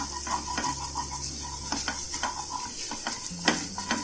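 A spoon stirring and scraping a sizzling mix of butter, ginger-garlic paste and red chilli powder in a pan, with frequent irregular knocks of the spoon against the pan over a steady frying hiss; the loudest knock comes about three and a half seconds in.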